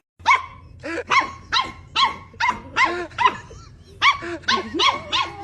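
A dog barking in a quick run of short, high barks, about three a second, with a brief pause around the middle.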